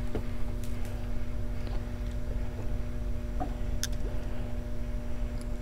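A steady electrical hum with a low rumble underneath, broken by a few faint clicks and ticks, one sharper click a little before the four-second mark.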